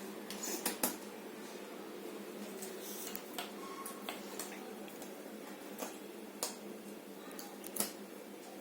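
Jigsaw puzzle pieces being handled and fitted, with irregular small clicks and taps, the sharpest about a second in and near the end, over a steady background hum.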